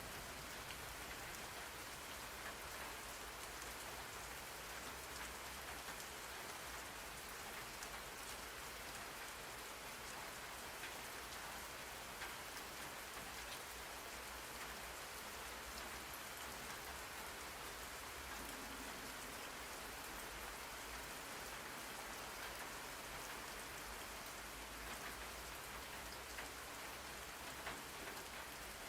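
Steady rain falling, an even hiss of drops with faint scattered patters, used as a white-noise backdrop.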